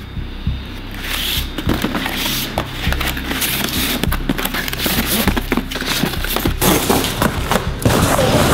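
Background music with a steady beat that gets fuller and louder about a second in.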